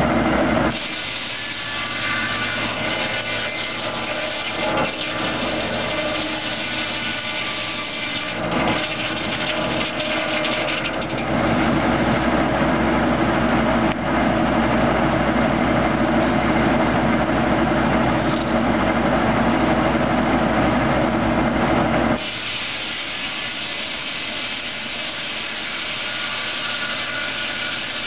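A 1970s Foley Belsaw circular sawmill, its blade driven off a tractor's PTO, sawing a log. The blade runs steadily with the drive humming, and it grows much louder and harsher for about eleven seconds in the middle while the blade is ripping through the wood.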